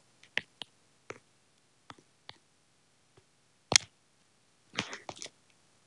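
Faint, scattered clicks and taps of a fingertip on a smartphone touchscreen, about half a dozen single ticks with the sharpest one a little before four seconds in. A short cluster of softer ticks follows about five seconds in.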